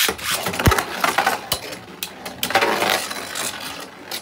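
Two Beyblade Burst spinning tops ripped from their launchers into a plastic stadium, then spinning, scraping and clashing inside it, with sharp clacks about two-thirds of a second and a second and a half in.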